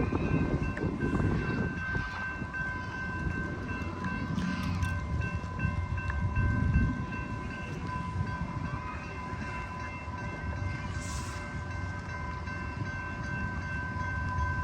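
Rail Runner Express commuter train, pushed by an EMD-powered MP36PH-3C diesel-electric locomotive, rumbling into the station. A steady high squeal of several tones runs over the rumble, and a short hiss comes about eleven seconds in.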